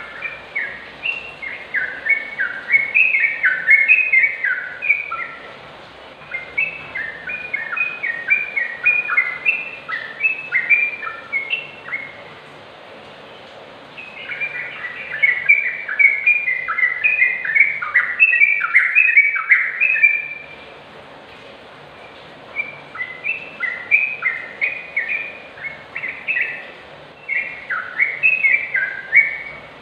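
Yellow-vented bulbul singing: fast, bubbling phrases of chirpy, sliding notes, each lasting several seconds. The phrases come four times, with pauses of about two seconds between them.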